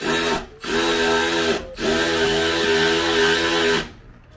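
Cordless power drill running in three bursts, a short one, one of about a second and one of about two seconds, its motor whine sagging in pitch as each stops, driving fasteners to mount a table on a Jeep tailgate.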